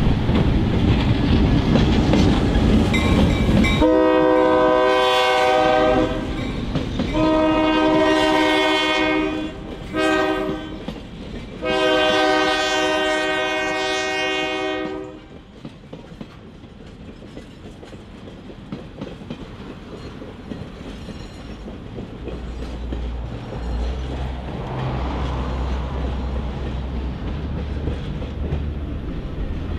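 EMD GP38-2 diesel locomotive passing with a loud rumble, then sounding its horn in the grade-crossing pattern: long, long, short, long, starting about four seconds in. After the horn, the passenger cars roll by more quietly, their wheels clicking over the rail joints.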